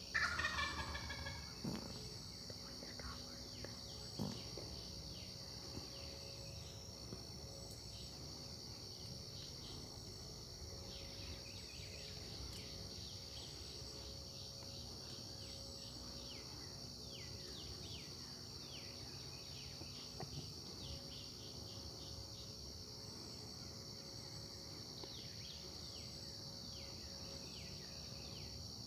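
A wild turkey gobbler gobbles once, loud and rattling, right at the start. Small birds chirp here and there after it over a steady high insect drone.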